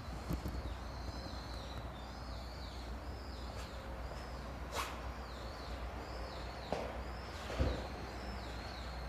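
A small bird chirping over and over, one short call less than a second apart, over a low steady rumble. A few sharp knocks stand out, the loudest near the middle and about three-quarters through.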